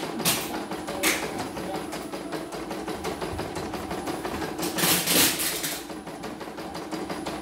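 CNY computerized embroidery machine stitching a test design, its needle mechanism making a rapid, even ticking rhythm. A louder rushing noise swells briefly near the start and for about a second around five seconds in.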